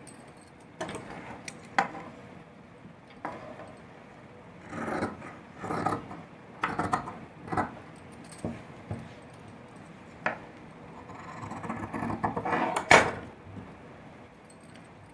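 Large tailoring shears snipping through folded cotton lining cloth in a series of short cuts, with cloth rustling as it is handled. Near the end a sharp knock as the metal shears are set down on the wooden table.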